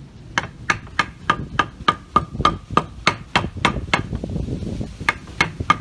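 A hammer striking a wooden block to knock a sliding glass door's bottom slide rail loose. The blows are gentle and quick, about three a second, and each has a short ringing note. They stop for about a second near four seconds in, then start again.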